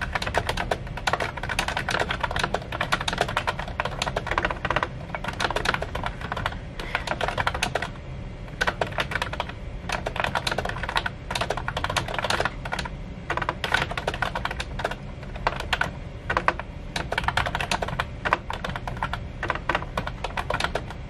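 Fast typing on a computer keyboard with round, typewriter-style keycaps: dense runs of key clicks broken by short pauses.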